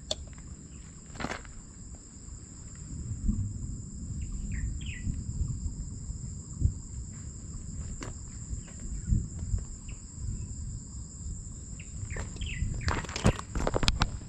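Insects trilling in a steady high-pitched drone, over a low rumble, with a few short bird chirps. Near the end come several sharp knocks and rustles as the camera is handled close up.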